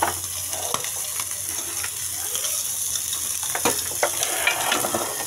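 Pieces of goat meat sizzling in a metal pan on the stove, a steady frying hiss with scattered clicks and light knocks.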